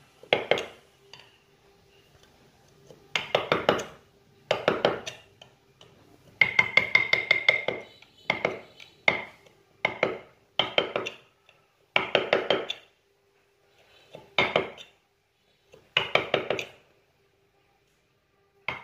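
Wood-carving chisel being struck with a mallet as it cuts into a carved wooden relief panel: short runs of quick, sharp, clinking taps, about a dozen runs with brief pauses between them.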